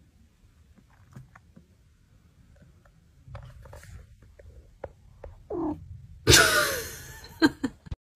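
Domestic cat purring low and softly, then giving a meow that slides downward about five seconds in, followed by a loud, harsh yowl near the end.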